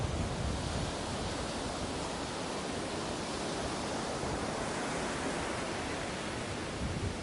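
Ocean surf washing onto a beach: a continuous rushing wash that swells in the middle and eases off near the end.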